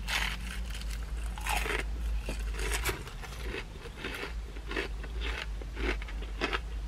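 Crispy fried chicken being bitten into and chewed close to the mouth: a run of short, crisp crunches from the breading, over a low steady hum.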